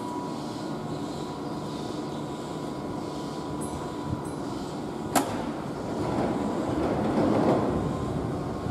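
Keihan 7200-series electric train standing at a station platform, with steady train and station noise. There is a sharp click about five seconds in, then a rumble of rail noise that swells and fades between about six and eight seconds in.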